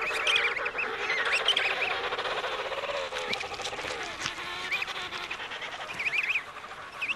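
Emperor penguin chick peeping in many short, rising-and-falling whistles as it begs and is fed from its father's bill. A lower warbling call runs under them for the first few seconds.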